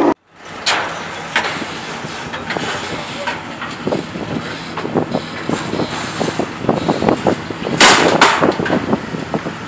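Box-body Chevrolet Caprice rolling down off a car-hauler trailer, with irregular knocks and clatter throughout and two loud bangs about eight seconds in.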